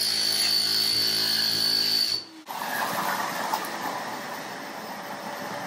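A Hilti demolition hammer chiselling up pebble tile and mortar, its motor running with a steady high whine, stops about two seconds in. A steady rushing noise carries on after it.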